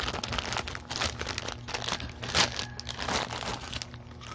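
Clear plastic packaging crinkling and rustling as a new wallet is unwrapped by hand: irregular crackles, with a louder rustle about two and a half seconds in.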